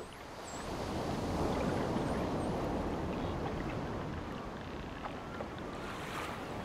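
Ocean waves breaking on a sandy beach. A wave surges in about a second in, then slowly washes back and fades.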